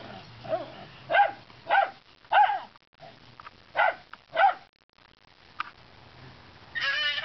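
Dog barking excitedly at a lizard just out of reach on a wall: three sharp barks, a short pause, then two more. A brief high, wavering cry follows near the end.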